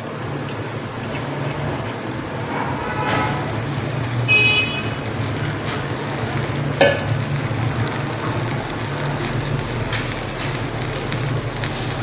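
Egg-soaked bread frying gently in a pan over a low flame: a steady sizzle and hiss over a low hum, with one short sharp knock about seven seconds in.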